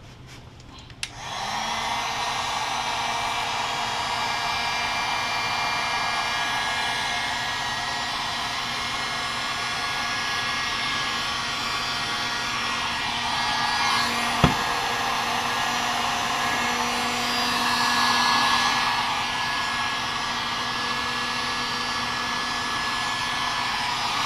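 Electric heat gun switched on about a second in, its motor spinning up and then blowing steadily, heating the end of blue PEX tubing to soften it for a fitting. A single sharp click near the middle.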